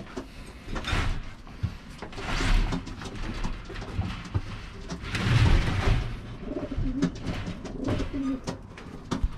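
Racing pigeons cooing in the loft, mixed with swishing rustles and a few light knocks as things are moved about; the loudest rustles come about two and a half and five and a half seconds in.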